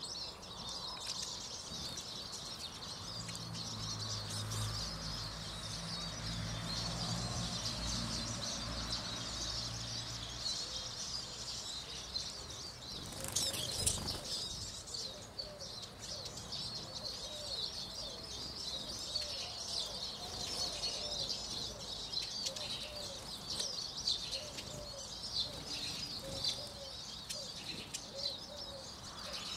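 Constant high twittering of a flock of Eurasian siskins at a bird feeder. There is a brief flutter of wings about halfway through, a low steady hum in the first third, and soft low cooing calls repeating through the second half.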